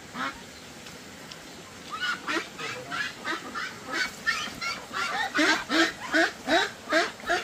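Domestic ducks quacking: a couple of stray calls, then a quick run of short quacks from about two seconds in that grows louder and faster, roughly three a second, over the last couple of seconds.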